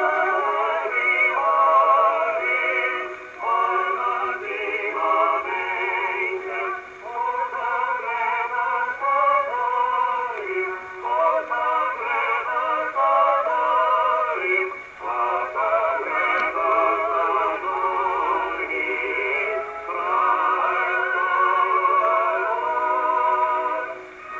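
A 78 rpm record played on a Columbia wind-up acoustic phonograph from about 1915: a singer with wide vibrato over accompaniment, in phrases with short breathing gaps. It sounds thin, with no deep bass and no high treble, as acoustic playback does.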